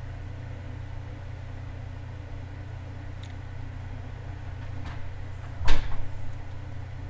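Screwdriver and radio chassis being handled on a silicone work mat during screw removal: a couple of faint clicks, then one sharp knock with a few smaller taps after it, near the end. A steady low hum runs underneath.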